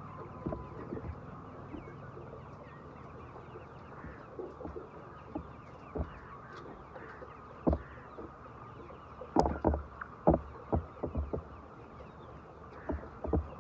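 A flock of chickens in a poultry house, a constant background of clucking and peeping, broken by a string of irregular sharp knocks, most of them clustered a little past the middle.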